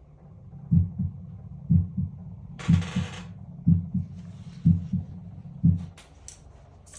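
Normal heart sounds, a steady lub-dub about once a second, six beats in all, the first thump of each pair the louder: S1 and S2, both valve closures sounding normal.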